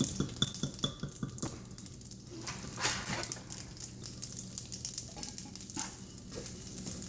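Eggs being beaten with a fork in a bowl: irregular clinks and taps of the fork against the bowl.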